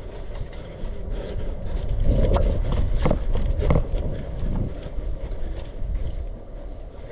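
Footsteps and rattling gear as a player runs, with a steady low rumble of handling and movement on the microphone and a few sharp knocks in the middle.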